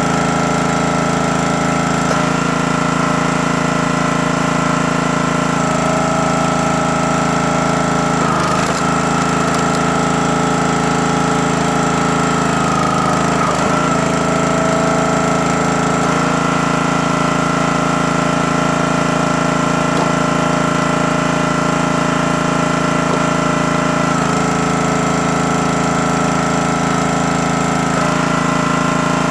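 A gas-engine log splitter running steadily with its hydraulic pump. The tone changes every few seconds as the splitter is worked, and the engine dips briefly twice, as under splitting load.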